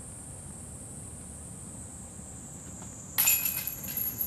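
Disc golf putt striking the hanging metal chains of a disc golf basket: a sudden jangle of chains about three seconds in that rings on and dies away within about a second. A steady high buzz of insects runs underneath.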